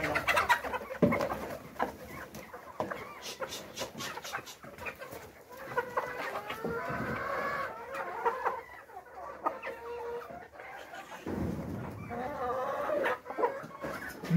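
A flock of chickens clucking, short pitched calls overlapping one another throughout.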